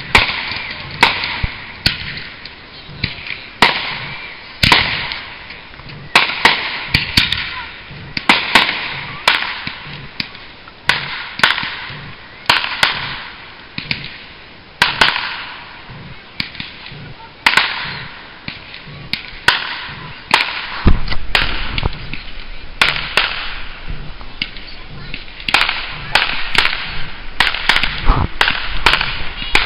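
Fireworks going off: a continuing run of sharp bangs and cracks, about one or two a second, over a steady crackling hiss.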